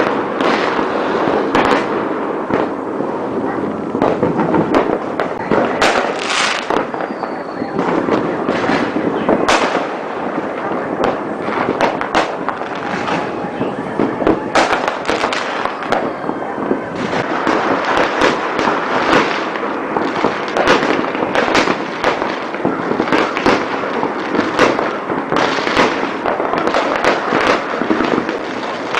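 Many fireworks and firecrackers going off at once: a continuous barrage of overlapping bangs and crackles with no break.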